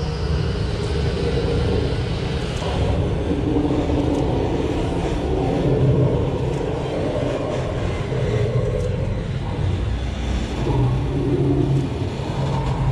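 Studio tour tram moving along, with a steady low rumble from its tractor engine and rolling wheels.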